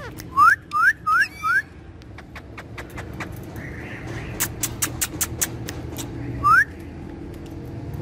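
Short rising whistles, four in quick succession and one more near the end, with a run of sharp clicks in between.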